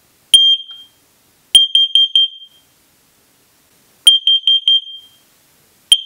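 X-Sense XC01-M carbon monoxide alarm sounding its self-test, which signals that the alarm is working correctly: a short high-pitched chirp, then two sets of four quick beeps about two and a half seconds apart, and one more chirp near the end.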